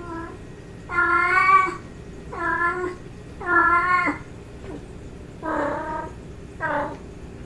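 Female domestic cat giving a series of about six calling meows, courtship-style, each a pitched drawn-out call of a different length, the longest about a second in.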